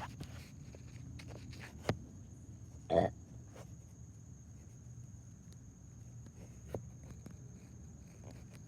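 Quiet outdoor night ambience: a steady high insect drone over a low background rumble. A short grunt-like voice sound comes about three seconds in, and a couple of faint clicks are scattered through.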